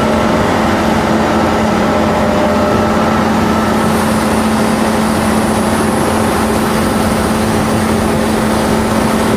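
Doosan S500 crawler excavator's diesel engine running steadily while the shovel-front arm and bucket are worked hydraulically. A faint high whine joins about four seconds in.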